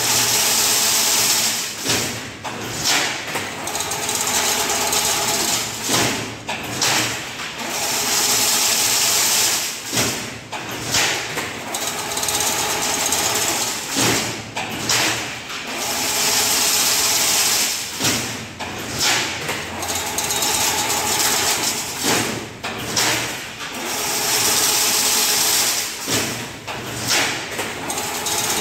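Fully automatic chain link fence machine running. A loud whirring stretch of two to three seconds alternates with a run of clanks and knocks, and the cycle repeats about every seven seconds.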